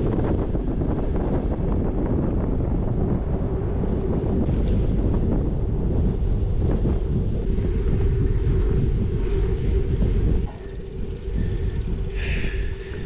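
Wind buffeting the microphone of a bike-mounted action camera as it rides along, a loud, heavy low rumble. It eases suddenly about ten and a half seconds in.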